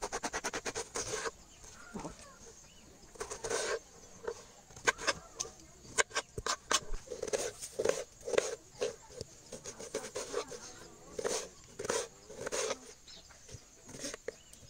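Small knife cutting a firm guava into pieces on a wooden chopping board: a quick run of taps at the start, then crunching cuts and sharp knocks of the blade on the board at irregular intervals.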